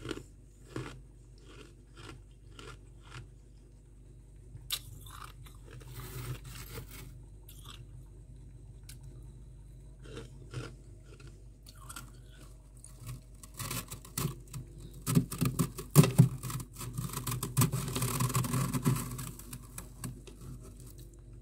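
Crunching of powdery freezer frost: scattered crisp crunches at first, then a long run of dense, louder crunching about two-thirds of the way through.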